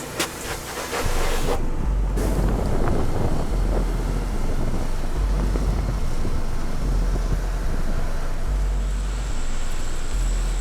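Pressure washer spray hissing against truck bodywork, with a deep bass note underneath that changes pitch in steps every second or two.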